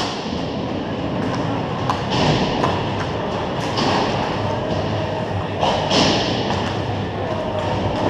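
Ice hockey skates scraping and carving on the ice, with several sharp clacks of sticks and pucks, the loudest right at the start, over a steady low rumble in the rink.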